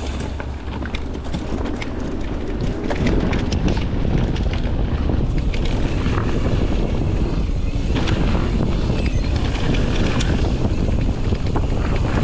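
Wind buffeting the microphone of a handlebar-mounted action camera as an electric mountain bike rolls down a dirt trail, with tyre noise on the dirt and scattered clicks and rattles from the bike over the bumps. The wind rumble gets a little louder about three seconds in.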